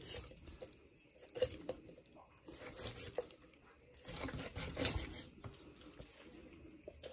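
Boning knife scraping along the bones of a raw whole chicken and slicing through the flesh, with wet tearing of skin and meat. The sound is a string of soft, irregular scrapes and clicks, loudest about five seconds in.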